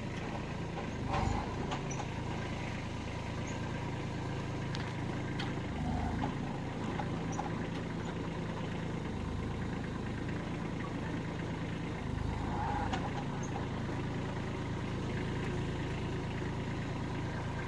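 Kubota A211N compact tractor's 21 HP three-cylinder diesel engine running at low, steady revs while the tractor is driven slowly up onto a raised platform, with a few brief swells in engine sound.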